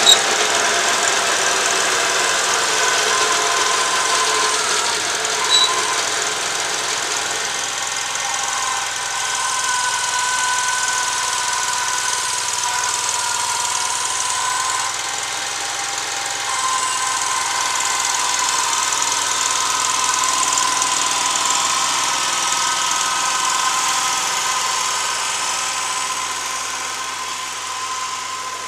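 Vermeer SC252 stump grinder's Kohler 25-horsepower engine running steadily, with a steady high whine over the engine noise.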